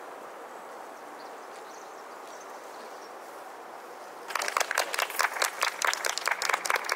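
Steady background hum, then about four seconds in a small audience breaks into applause, many quick, uneven claps.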